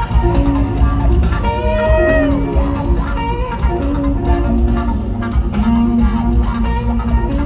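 A rock band playing live, an electric guitar leading over bass and drums, with a bent guitar note about two seconds in.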